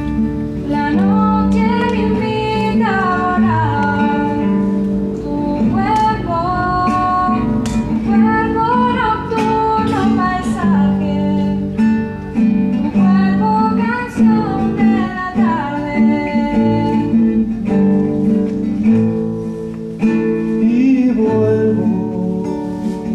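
A woman singing a slow melody over acoustic guitar accompaniment.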